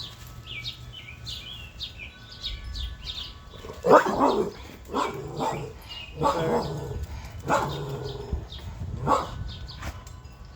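A dog barking about five times, starting about four seconds in, with small birds chirping throughout.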